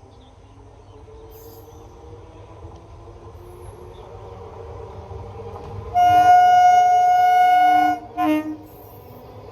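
Indian Railways electric locomotive horn: one long blast of about two seconds, then a short toot, over the rumble of the approaching train, which grows steadily louder.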